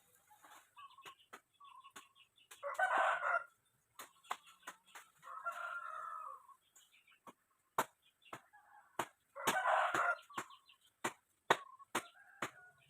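Chickens calling: three louder calls about three, six and ten seconds in, with many short, sharp clicks and taps in between.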